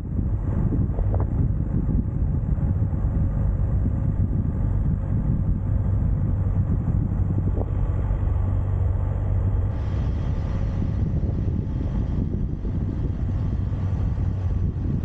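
Steady low rumble of a running engine with wind noise, as from a moving vehicle.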